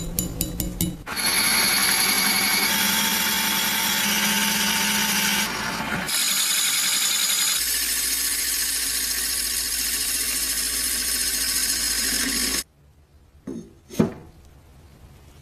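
A power tool running loudly and steadily for about eleven seconds after a quick run of clicks, its whine shifting a few times, then cutting off suddenly; two or three light knocks follow near the end.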